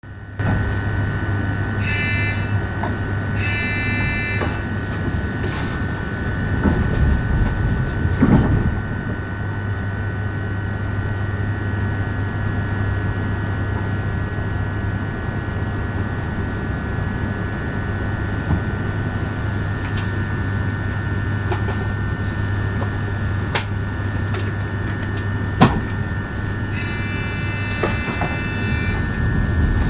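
Steady electrical hum inside a standing Škoda Vagonka EJ575 electric multiple unit, from its onboard equipment. Short electronic beeps sound about two and four seconds in, and a longer run of beeps comes near the end, with a couple of sharp clicks shortly before it.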